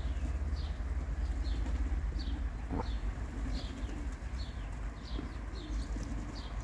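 A flock of racing pigeons: soft cooing and wing movement, with a sharp tap about three seconds in. Over it, short high falling chirps from a bird repeat about twice a second.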